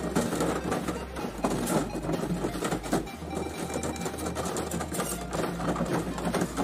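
Thin copper refrigeration tubing clinking, scraping and rustling as coils of it are handled and threaded through one another, with many small clicks. A low, evenly pulsing hum runs underneath.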